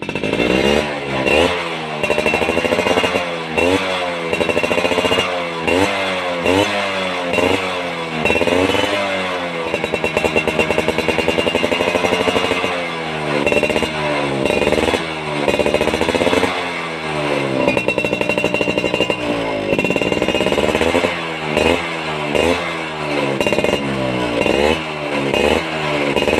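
Yamaha F1ZR two-stroke single-cylinder underbone motorcycle with a CRN racing exhaust, revved in repeated quick throttle blips that rise and fall about once a second, with two longer held revs in the middle.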